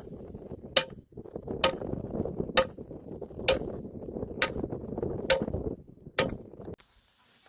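Hammer blows driving a steel pipe stake into the ground: seven ringing metallic clangs about a second apart, with a low rustling noise between them, stopping near the end.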